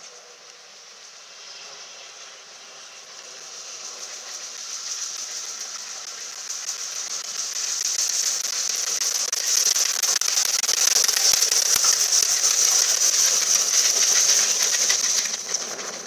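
Southern Railway Merchant Navy class three-cylinder Pacific steam locomotive No. 35028 Clan Line approaching and passing close by with its train, growing steadily louder over about ten seconds, with a strong hiss of steam.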